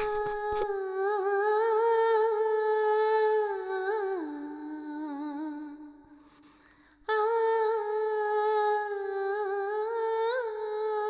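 Film background score: a wordless high voice holding long, slightly wavering notes. It steps down in pitch about four seconds in, fades out, and comes back abruptly a second later on the higher note.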